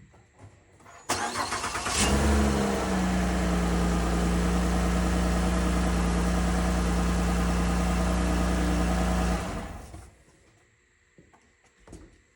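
2012 Ford Fusion 3.0 V6 engine started: the starter cranks for about a second before the engine catches, then it idles steadily for about seven seconds and is switched off, dying away near the end.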